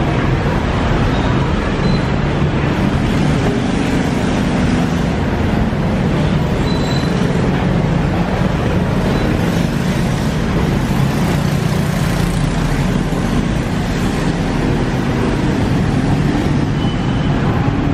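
Steady city street traffic: motorbike and car engines running and passing, heard as a continuous rumble.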